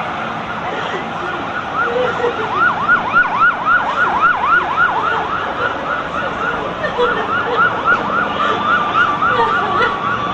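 Emergency vehicle sirens sounding. From about two seconds in, one runs a rapid yelp of about four sweeps a second, and near the end a steady held siren tone joins it.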